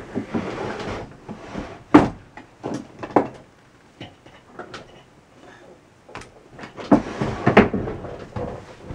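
Handling noises at a sewing table: rustling with scattered clicks and knocks, including a sharp knock about two seconds in and a longer stretch of rustling near the end, as pliers and the gown are picked up.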